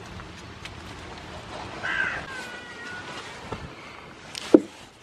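A short, harsh animal call about two seconds in, then a single sharp knock near the end.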